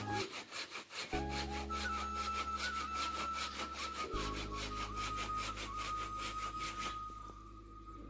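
Hand saw cutting through a green mulberry branch in quick, even back-and-forth strokes, stopping about seven seconds in. Background music with held tones plays under it.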